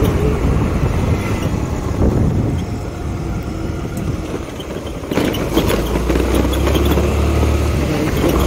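Motorcycle on the move: engine and road noise while riding, easing off for a couple of seconds, then louder again about five seconds in.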